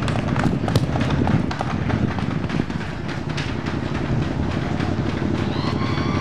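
Motorcycle engine running at low speed with a rapid, rough beat as the bike rides up and pulls to a stop. A steady high-pitched squeal starts near the end.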